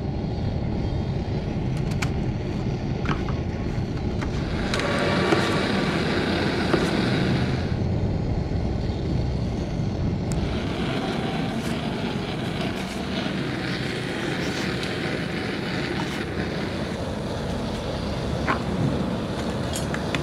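A steady low rumble throughout, with a louder hissing stretch about five to eight seconds in, and a few sharp clicks as lead-acid battery plates are handled against a metal mould.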